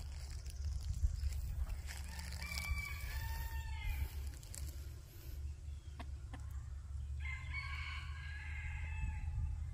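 A rooster crowing twice, a shorter crow a few seconds in and a longer one near the end, faint over a steady low rumble.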